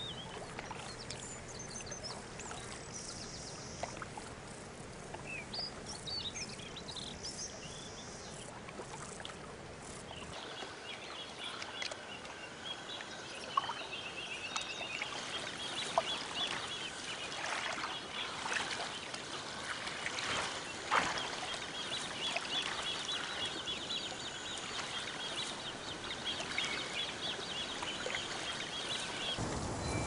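Evening pond-side wildlife ambience. It begins with scattered high bird calls. From about ten seconds in, a dense, pulsing chorus of high chirping takes over, with a few sharp clicks.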